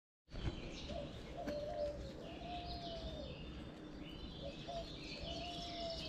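Songbirds singing and chirping in a springtime garden, with a lower, drawn-out call that comes back several times and a low rumble underneath.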